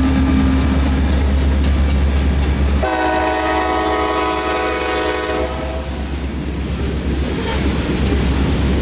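Diesel freight locomotives passing close by with a deep, steady engine rumble. About three seconds in, a multi-chime air horn sounds one blast of about two and a half seconds.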